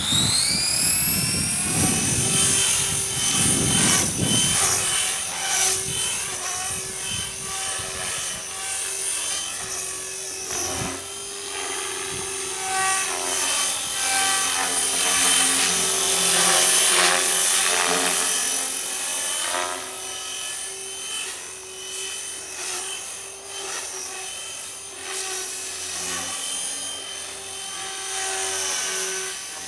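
Radio-controlled model helicopter spooling up with a steeply rising whine at the start, then flying, its motor and rotor whine sweeping up and down in pitch as it manoeuvres.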